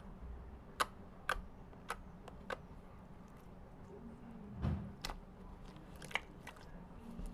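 Slime being worked by hand, giving a series of about six sharp clicking pops, with a duller thud a little past the middle.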